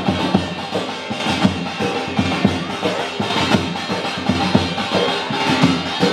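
Music with drums and percussion keeping a steady beat.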